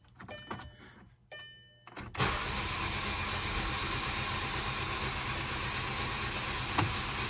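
A few dashboard chime tones and clicks, then about two seconds in the starter cranks the VW 2.0 TSI turbo engine continuously with a smooth, even spin and no firing, sounding as if there is no compression. The owner puts this down to a failed timing chain tensioner. A single sharp click comes near the end.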